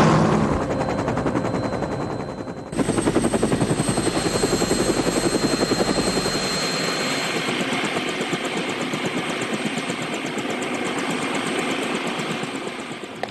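Helicopter rotors chopping in a fast, even rhythm. The sound dips briefly and then comes back suddenly louder about three seconds in.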